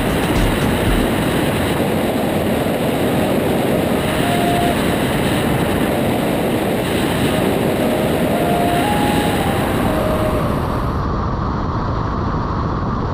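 Steady rush of airflow and engine drone from an Aeroprakt A22 Foxbat light aircraft in flight, heard through a wing-mounted camera with wind on the microphone. The highest hiss drops away near the end.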